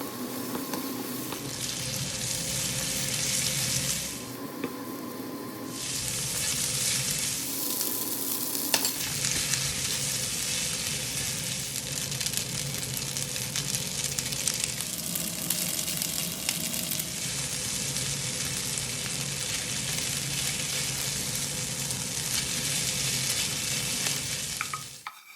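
Udon noodles stir-frying in a hot pan: a steady sizzle with stirring. The sizzle dips for a couple of seconds about four seconds in and cuts off suddenly near the end.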